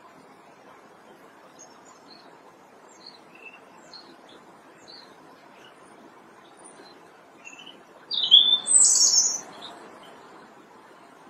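European robin singing: scattered faint high chirps, then one loud, high, twittering phrase about eight seconds in that lasts about a second and a half.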